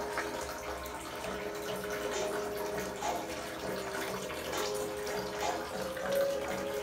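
Water running and splashing, like a tap or a filling tub, with a quiet melody of background music under it.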